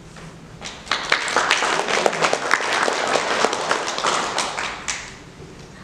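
Audience applauding, a dense patter of many hands clapping that starts about a second in and dies away near the end.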